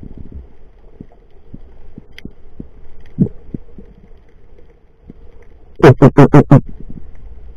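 Underwater sound picked up through the camera's housing: a low rumble with scattered faint knocks and clicks. Near the end comes a quick run of five loud pulses, close together.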